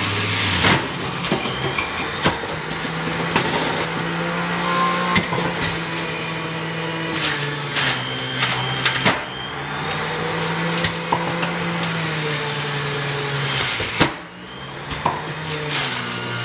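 Electric centrifugal juicer running, its motor hum sagging in pitch and recovering again and again as chunks of apple and pear are pushed down the chute and shredded, with sharp crunches and knocks from the produce.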